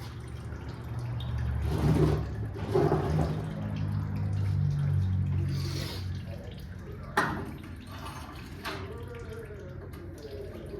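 Fluid trickling and splashing from a disconnected engine line into a catch container, with a sharp metal clink about seven seconds in and a lighter one shortly after.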